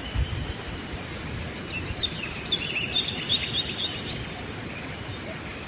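Wild birds chirping in a quick run of twittering notes in the middle, over a steady high insect trill that keeps pulsing. A couple of low thumps sound near the start.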